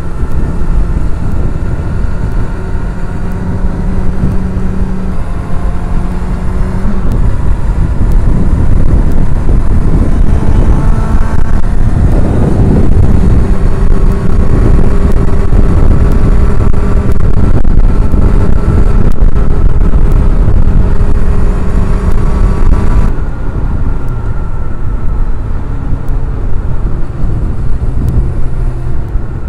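Heavy wind buffeting on the microphone over a sport motorcycle's engine at road speed. The engine note climbs about ten to twelve seconds in as the bike accelerates, then holds steady.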